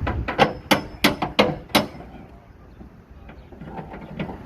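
A hammer striking foundation forms being assembled: about six sharp blows at roughly three a second, then stopping, with a few faint knocks after.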